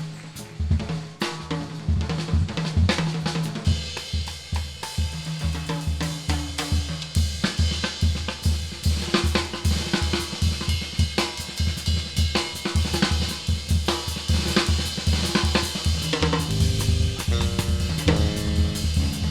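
Drum kit played solo in a busy live groove, with a steady bass drum, snare strokes and rimshots, and hi-hat and cymbals over the top.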